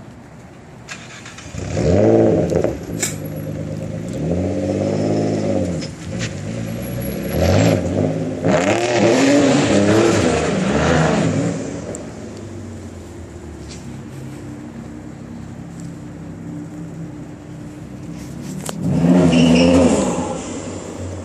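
Twin-turbo Infiniti G35's V6 engine revving in repeated bursts, its pitch climbing and falling with each blip. It settles to a steady idle for several seconds, then gives one more sharp rev near the end.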